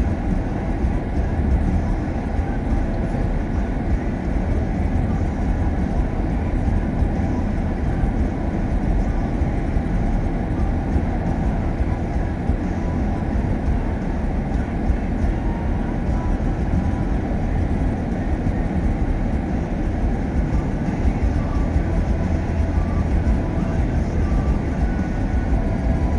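Steady road noise heard inside a moving car's cabin: tyres on the pavement and the engine, low and even throughout.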